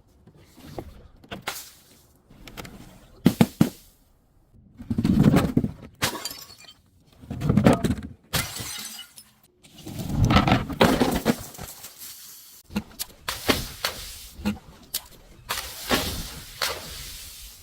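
Glass being smashed and crushed: a series of sudden cracks and shattering, crunching breaks, several of them loud with a heavy low thud, separated by short quieter gaps.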